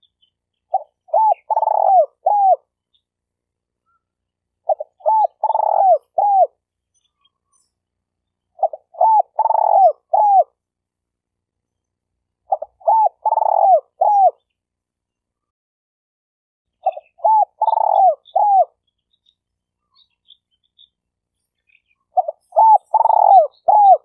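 Spotted dove (tekukur) cooing: six repeated phrases, each a couple of short coos, then a longer drawn-out coo and a short closing note, with pauses of two or three seconds between phrases.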